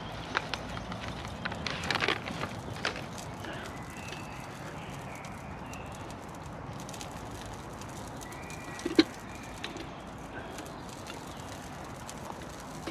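Packet crinkling and rustling as instant mashed potato flakes are tipped into a mug, then hot water poured from a small kettle into the mug. A sharp clink about nine seconds in.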